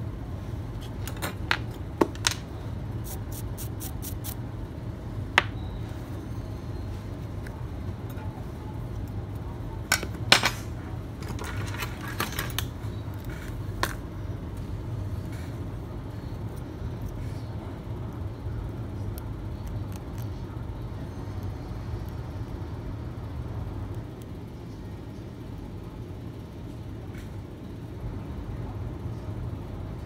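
Light metallic clicks and taps from small repair tools, over a steady low hum. There is a quick run of about six ticks a few seconds in and a denser cluster of clicks around the middle.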